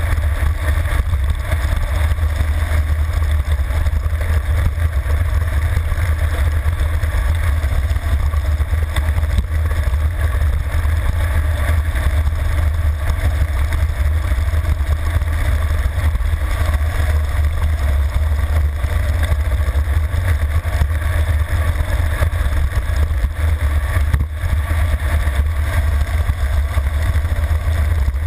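Wind buffeting a handlebar-mounted camera's microphone on a road bike descending at high speed: a loud, steady low rumble with a rushing hiss above it.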